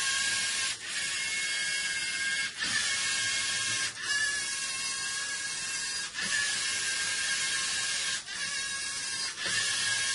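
LEGO EV3 robot's servo motors and gear trains whirring as it drives, in runs of one to two seconds broken by short breaks where the motors stop between moves.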